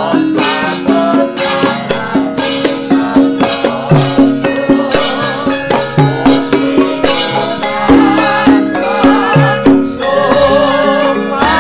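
Javanese gamelan ensemble playing a brisk, rhythmic piece of struck metal tones. About ten seconds in, female sinden voices come in, singing with a wavering vibrato.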